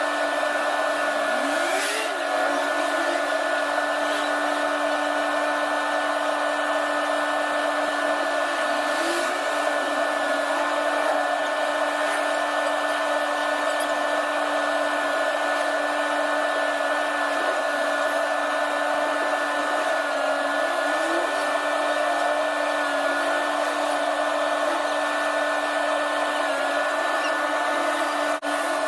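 Steady mechanical whine, like a small motor running continuously at constant speed, with a brief dropout near the end.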